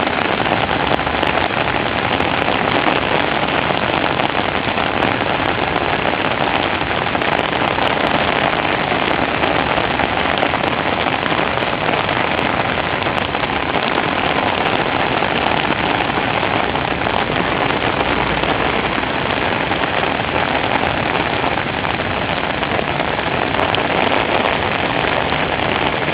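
Heavy rain falling, a steady dense hiss of the downpour with no let-up.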